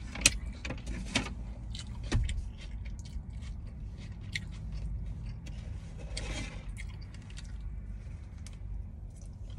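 Close-miked chewing of a cheeseburger: wet mouth clicks and smacks, sharper in the first two seconds, with a short rustle about six seconds in, over a steady low hum.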